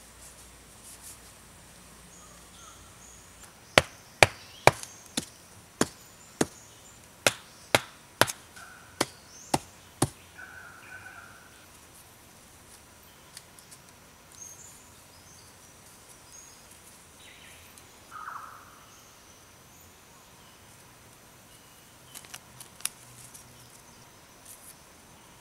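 Wooden stakes being hammered into the ground: about a dozen sharp knocks, roughly two a second, starting about four seconds in and stopping about ten seconds in.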